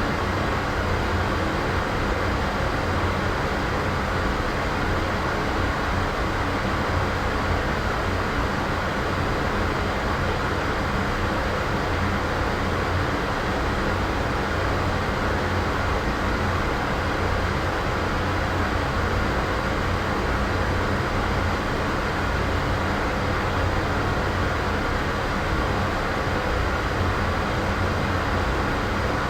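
Steady background ambience noise: an even, unchanging rumble heaviest in the low end, with a faint steady hum.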